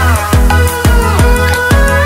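Electronic dance background music with a heavy bass and a steady driving beat, its synth notes sliding downward.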